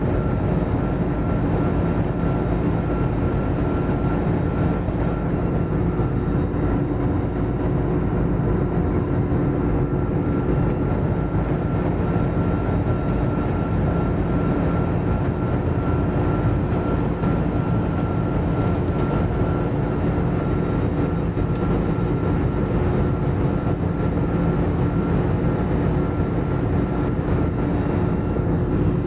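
Jet airliner cabin noise in cruise: the steady rush of engines and airflow heard from a window seat, with a low steady hum and a thin steady whine above it.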